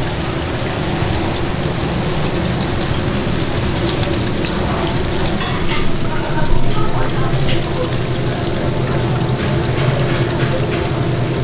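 Battered pork ribs deep-frying in the oil of a commercial fryer, a steady sizzle, with a few light metal clicks from steel tongs against the fryer basket.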